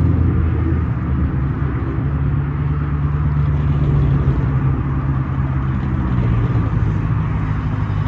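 Car engine running at low revs as the car rolls slowly, heard from inside the cabin; its note rises a little about two seconds in.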